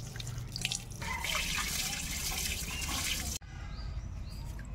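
Water poured from a mug over cut kadam fruit pieces in a plastic colander, splashing and draining through. A heavier, steady pour starts about a second in and stops abruptly after about two seconds, followed by lighter dripping.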